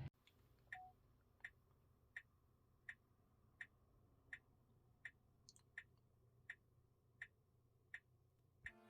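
Tesla Model 3 turn-signal indicator clicking faintly and evenly, about one click every 0.7 seconds.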